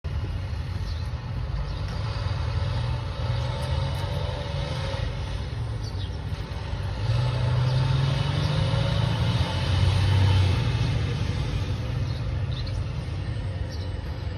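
International MaxxForce DT466 7.6-litre six-cylinder diesel of a 2009 International WorkStar 7400 dump truck running with a steady low rumble, growing louder for a few seconds about halfway through, then settling back.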